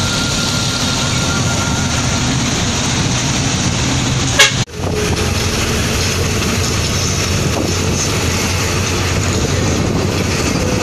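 Steady road and engine noise heard from inside a moving vehicle, with a single sharp knock about four and a half seconds in, followed by a momentary dropout.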